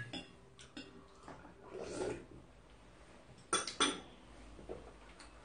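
Tableware clinking at a meal table: spoons and bowls knocking lightly, with two sharp clinks close together a little past halfway.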